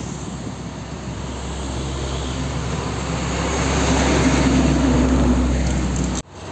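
Hino Ranger diesel dump truck approaching and passing close by: its engine drone and tyre noise grow louder to a peak about four seconds in, then cut off suddenly near the end.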